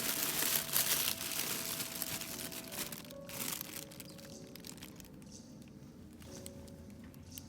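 A squirrel digging and scrabbling in snow: a rustling, crunching scratching that is loudest for the first few seconds and then fades. Soft background music with held notes plays underneath.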